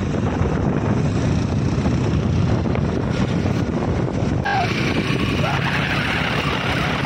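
Wind buffeting the microphone over the engine and road noise of a motorbike being ridden. About four and a half seconds in the noise turns brighter and harsher.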